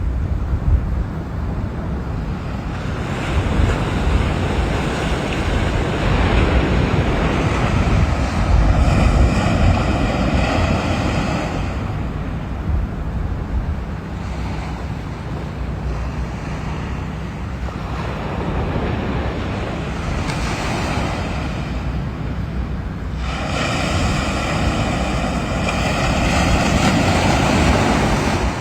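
Ocean surf washing and breaking on a sandy beach, swelling and easing as the waves come in, with wind buffeting the microphone. The surf grows louder in two long surges, one about a third of the way in and another near the end.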